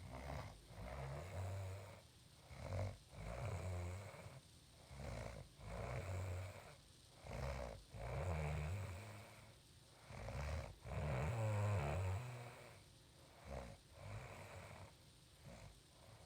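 A woman snoring loudly in her sleep: a string of snores about one every one to two seconds, some long and drawn out, others short.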